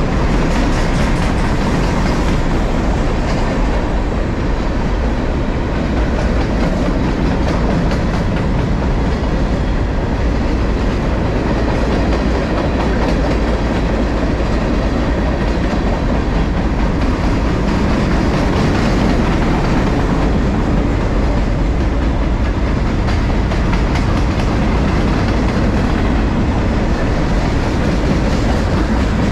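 Freight train rolling past on the rails, a steady loud noise of wheels and cars with a strong low end that holds without a break.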